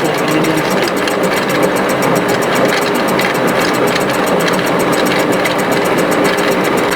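Four-cylinder fuel-injected petrol engine idling steadily with a rapid, regular ticking knock. The mechanic traces the knock to excess camshaft end play from a worn thrust plug.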